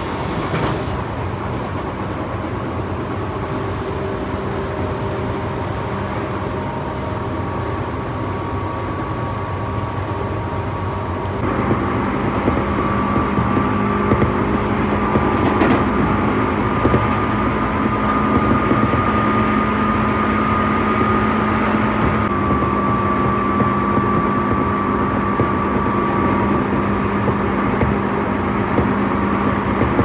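Tobu 9000 series electric train running, a steady rumble with a steady motor whine. It gets louder about eleven seconds in.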